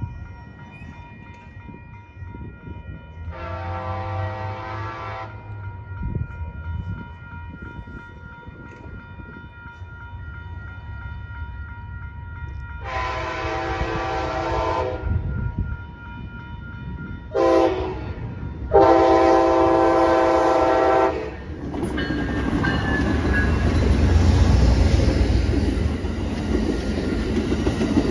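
Amtrak Coast Starlight locomotive horn sounding the grade-crossing signal: two long blasts, a short one and a final long one, over a steady ringing crossing bell. Then the train rumbles past close by, its wheels clacking over the rail joints.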